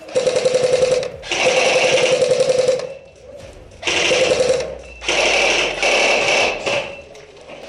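Airsoft electric gun (AEG) firing four full-auto bursts, each a rapid mechanical rattle over a steady whine, with short pauses between them.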